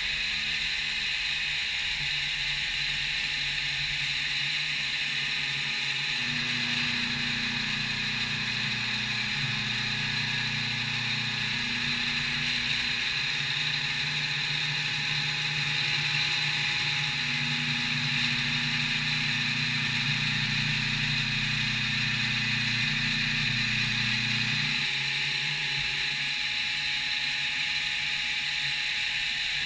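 CNC milling machine running a machining operation: a steady hiss with a low machine hum that comes in about six seconds in and drops away near 25 seconds.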